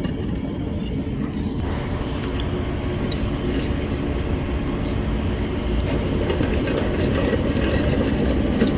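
Worn bearing in an old 5 hp electric motor giving a rough, rumbling grind as the shaft turns, with scattered clicks: the bearing is shot.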